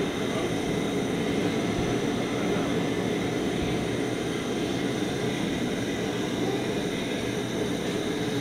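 Gas stove burner running steadily under an aluminium pot of milky chai at a rolling, frothing boil.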